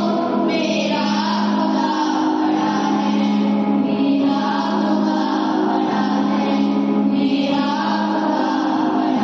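A group of children singing together in unison, with long held notes.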